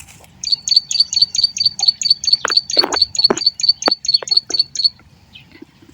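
A bird calling in a fast, even run of identical high chirps, about five a second, stopping shortly before the end. A few brief knocks sound under it in the middle.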